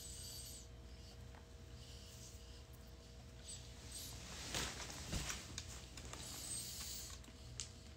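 Soft rustling and a few light clicks from someone shifting and handling things, over a faint steady hum.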